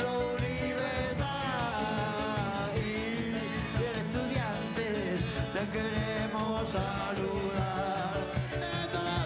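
Live rock band music: a man singing over electric guitar and a steady beat.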